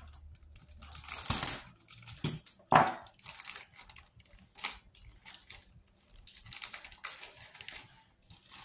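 Plastic model kit parts and clear plastic bags being handled: crinkling and rustling with scattered clicks and taps. The loudest bursts come about a second and three seconds in.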